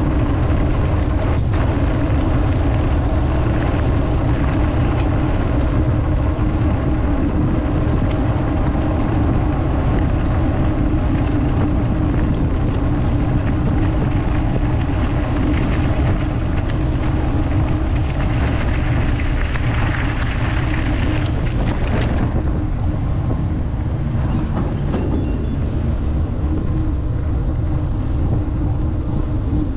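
Wind buffeting the microphone of a camera carried on a moving mountain bike: a steady, loud rumble.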